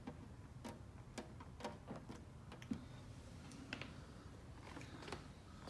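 Faint, irregular small clicks and taps as fingertips press and settle a plastic TOYOTA emblem, stuck on with double-sided tape, against the painted tailgate. One tap a little past the middle is sharper, and a low steady hum sits under them.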